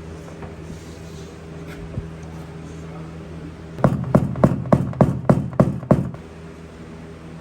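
About eight quick, evenly spaced hammer taps on a truck's sheet-metal body panel during dent repair, starting about four seconds in and lasting a little over two seconds, over a steady low hum.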